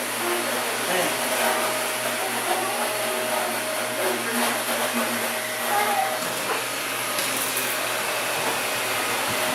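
Steady whooshing noise, like a household fan or blower running, with a faint high whine, and faint voices in the background.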